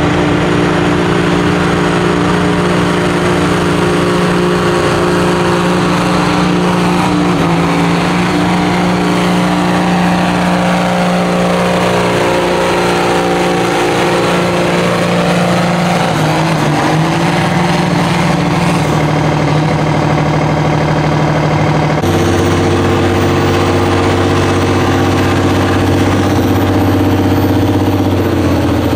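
Tractor diesel engine running hard under load as it pulls the weight sled, its pitch sweeping as it passes close by about halfway through. About three quarters of the way in it cuts abruptly to another tractor engine running steadily.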